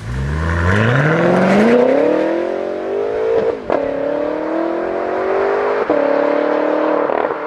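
BMW M6 Gran Coupe's turbocharged V8 accelerating hard, its pitch rising steadily and dropping at each upshift: three quick gear changes, the first about three and a half seconds in.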